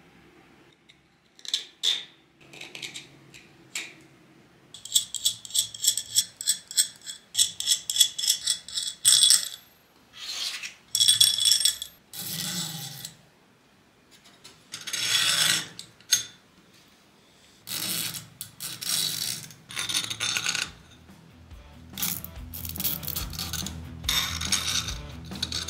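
Plastic spacers and metal electrode plates being handled and pushed onto threaded steel rods: quick runs of rapid clicking as parts ride along the threads, with scrapes, rubs and light clinks of the metal discs. Background music comes in near the end.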